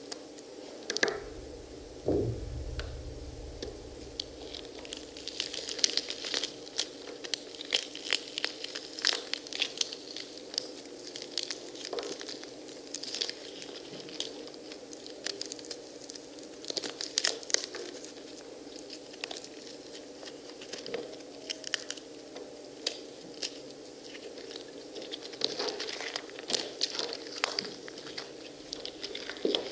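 Hands tearing and picking apart pomegranates: irregular clusters of wet crackling, tearing and crunching as rind is pulled and seeds are picked and crushed, over a faint steady hum. A low thud about two seconds in.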